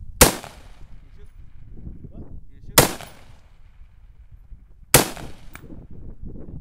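Three single gunshots from a shouldered gun, spaced about two and a half and then two seconds apart, each a sharp crack with a short echoing tail.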